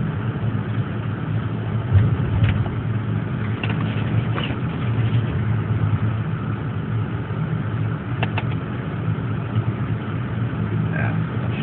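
A small Volvo's engine running steadily, heard from inside the car's cabin, with a few short knocks.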